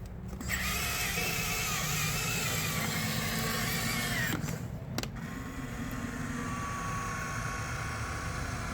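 Electric track motors and gearboxes of a Huina 1554 RC bulldozer whining as it drives. A higher, wavering whine stops about four seconds in, and after a couple of clicks the motors start again with a steadier, lower whine.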